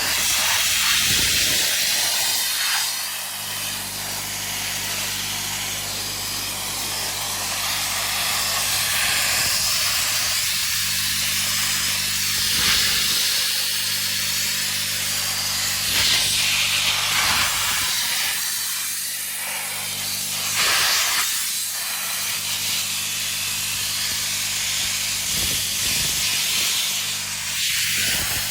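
Mobile abrasive blaster in use on bare steel: a loud, rough hiss from the nozzle that swells and fades every few seconds as it sweeps the part, over the steady low drone of the blast rig's compressor.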